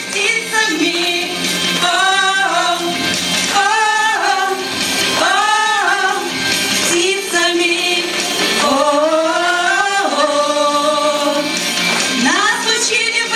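A woman singing a slow song with long held, gliding notes over a steady instrumental accompaniment.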